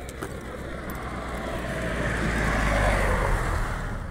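A car driving past: engine hum and tyre noise on asphalt build to a peak about three seconds in, then fade away.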